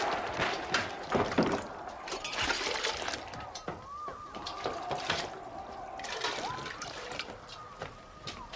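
Kitchen work at large metal pots: water sloshing and being poured as it is ladled, with repeated clinks and knocks of metal utensils and crockery.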